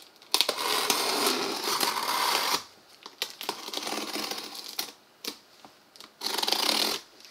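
A blade drawn along the packing-tape seam of a cardboard box, slitting the tape: a scratchy rip lasting about two seconds, a few small scrapes and taps, then a shorter cut near the end.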